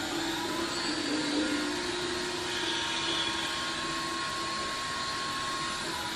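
Steady, noisy drone of an experimental live soundscape built with effect and loop pedals, a low tone held underneath and a thin higher tone that stops near the end.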